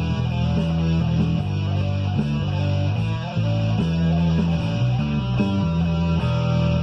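Electric guitar played over a rock backing track with bass guitar and a steady drumbeat.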